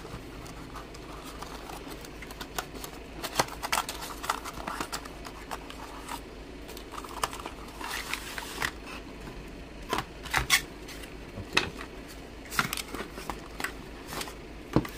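Opening a small cardboard box and taking out a multi-tool: scattered clicks and taps with short stretches of rustling packaging.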